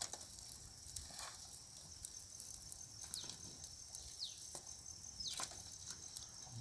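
Faint outdoor ambience: a steady high-pitched insect drone, with three short falling bird whistles about three, four and five seconds in, and scattered faint clicks.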